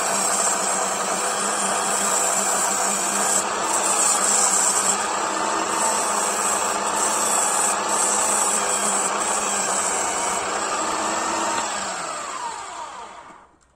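Parkside PDM 600 wood lathe's motor running steadily while sandpaper is held against the spinning wooden spindle. Near the end it is switched off, and the motor winds down with a falling pitch until it stops.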